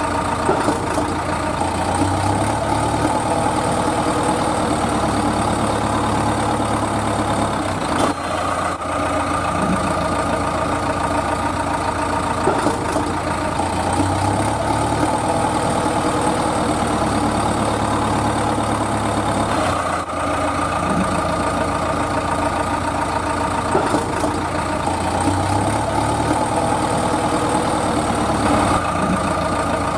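A truck engine idling steadily on a looped recording that repeats about every twelve seconds. A string-pulled plastic toy truck has no engine, so this is a sound effect laid over the picture.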